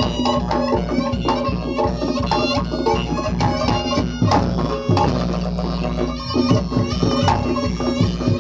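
Live Reog Ponorogo gamelan music: a slompret, the reedy Javanese shawm, playing a held, wailing melody over rapid, regular kendang drum strokes.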